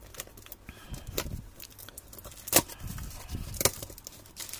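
Small cardboard parcel being opened by hand: packing tape and cardboard flaps pulled apart in scattered crackles and sharp clicks, the loudest about a second in, midway and near the end.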